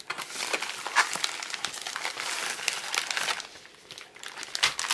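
Clear plastic packaging bag crinkling and crackling as it is handled. It goes quieter briefly about three and a half seconds in, then starts again near the end.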